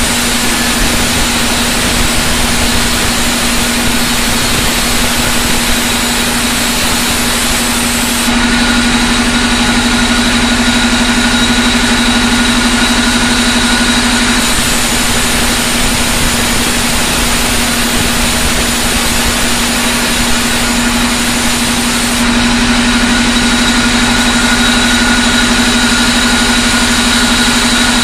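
Large vertical band saw running steadily while resawing jackfruit-wood planks lengthwise. A constant low hum runs throughout, and twice a higher whine comes in for several seconds as the sound grows a little louder.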